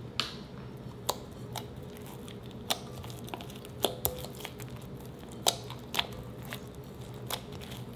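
Hand kneading and pressing freshly mixed clear slime, still foamy with air: sharp, sticky wet clicks and pops as it is squeezed and pulled, about a dozen at irregular intervals.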